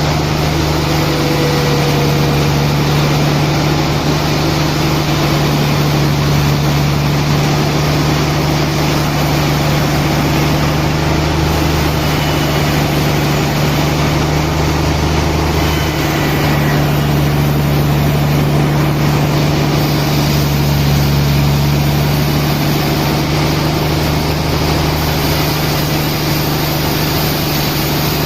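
Sawmill machinery running steadily: a loud, even motor drone with a strong low hum that holds without cuts, knocks or changes in pitch.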